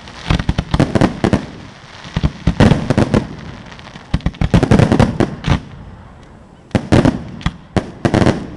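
Fireworks display: aerial shells bursting in quick clusters of sharp bangs, about five volleys with short lulls between them.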